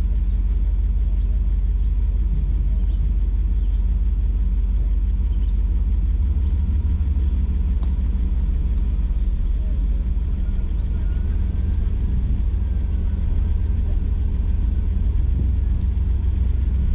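Jeep Grand Cherokee's engine and drivetrain running at low speed with a steady, deep low hum as it crawls along a dirt trail.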